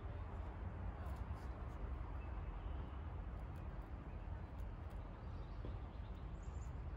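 Steady low rumble of outdoor background noise, with a few faint, light clicks scattered through it.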